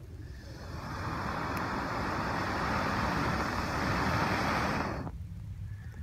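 A long steady breath blown through a hollowed dead pokeweed stalk onto hardwood charcoal coals to fan them hotter, heard as a rushing hiss. It builds over the first second and stops abruptly about five seconds in.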